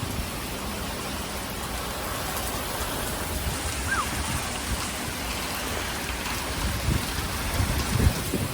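Heavy rain pouring steadily in a severe thunderstorm, with a few low rumbles from wind gusts or thunder toward the end.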